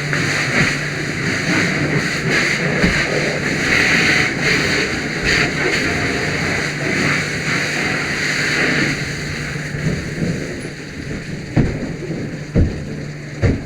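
Steady rain-like rushing noise over a low steady hum, dying down about nine seconds in, followed by three sharp knocks near the end.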